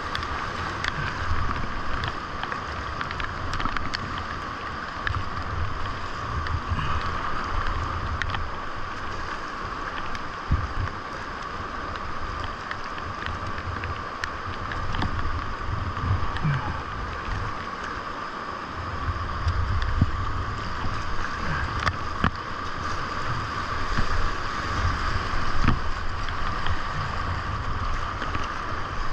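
Whitewater creek rapids at about 1,600 cfs rushing steadily around a kayak, with paddle splashes and water ticking on the camera. A low wind rumble on the microphone comes and goes, strongest in the second half.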